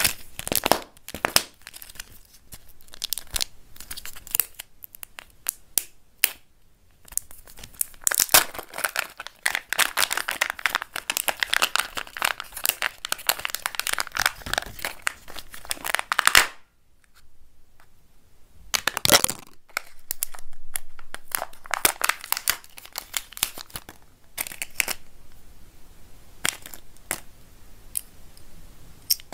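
A Kinder Joy egg being unwrapped by hand: its foil wrapper crinkles and tears, with sharp clicks and cracks from the plastic egg. A long dense stretch of crinkling comes near the middle, then a short lull, one louder burst and scattered crackles.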